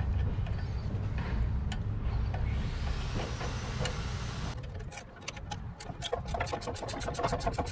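A ratchet wrench clicking fast and evenly, about seven or eight clicks a second, as a nut on the waterjet's steering linkage is run down. It starts about two-thirds of the way in. Before that, a steady low machine hum with a few light metal clicks.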